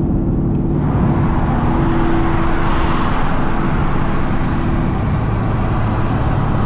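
Car engine running steadily under road and wind noise, heard from inside the cabin. The road and wind noise swells about a second in, and the engine's tone steps down to a lower pitch about five seconds in.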